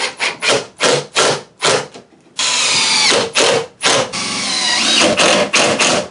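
Handheld power drill running in a series of short trigger bursts, then in two longer runs, its motor pitch rising and falling as it speeds up and slows down.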